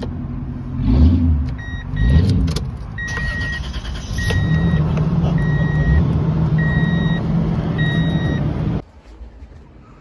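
A 2002 Toyota Tundra's engine running, revved briefly twice near the start and then idling steadily, while a dashboard warning chime beeps at an even pace, about once a second. Both cut off suddenly near the end.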